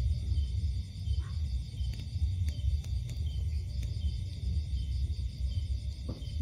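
Night insects trilling steadily, with short repeated chirps, over a continuous low rumble.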